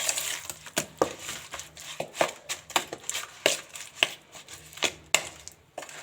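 Hands turning raw chicken pieces in an oil and spice marinade in a bowl: a string of short wet slaps and knocks, about two a second, at an uneven pace.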